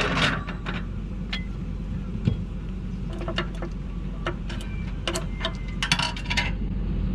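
Irregular light metallic clicks and knocks of a boat trailer's latch being worked by hand, over a steady low rumble.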